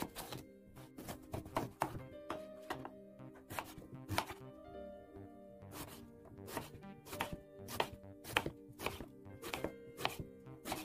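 Chef's knife slicing through an eggplant and knocking on a wooden cutting board with each cut, roughly two cuts a second with short pauses, over soft background music.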